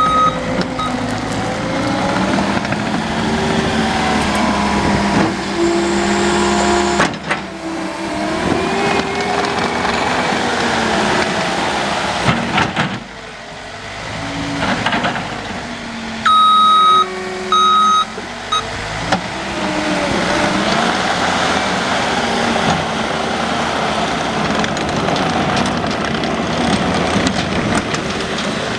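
John Deere 317G compact track loader running, its diesel engine rising and falling in pitch as the machine works. Its reversing alarm beeps briefly at the start and twice more a little past halfway.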